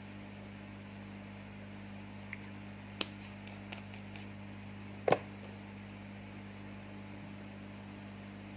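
Steady low electrical hum from the repair bench, with a light click about three seconds in and a louder, sharp tap about five seconds in.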